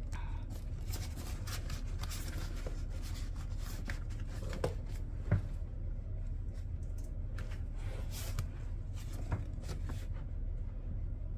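Hands handling a ring binder's plastic cash envelopes, paper challenge pages and a sticker sheet: light rustling with scattered small taps and clicks, and one sharper knock about five seconds in. A low steady hum runs underneath.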